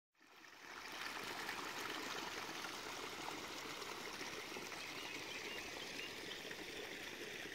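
Water running and trickling steadily, fading in over the first second.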